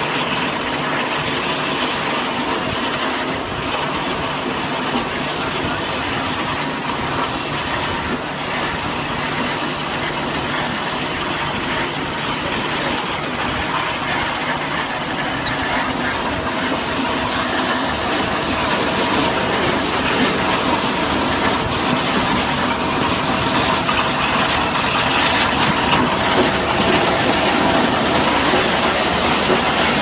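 Tractor-driven two-row potato combine harvester running while it digs: the tractor's engine under the steady clatter of the machine's conveyor webs carrying potatoes and soil, growing a little louder in the second half.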